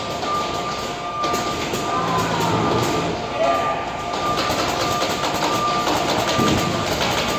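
Steady machine noise with a thin high whine that fades in and out.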